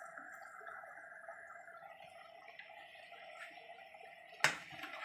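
A steady hum with a few faint ticks, and one sharp knock about four and a half seconds in.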